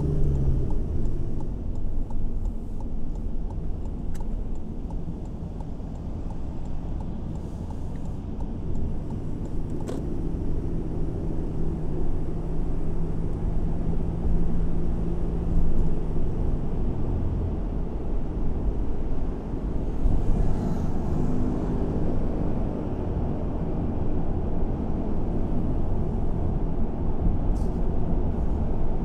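A car driving on city streets: a low, steady rumble of engine and road noise, with a steady low hum that holds for several seconds in the middle.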